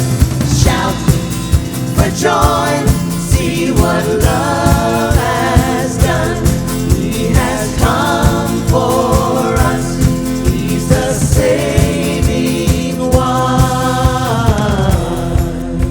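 Live worship band playing with singers, a steady drum beat under sustained sung lines.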